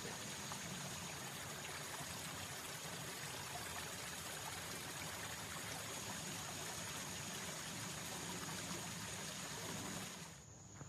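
Water of a small stream running steadily, an even trickling rush that drops away about ten seconds in.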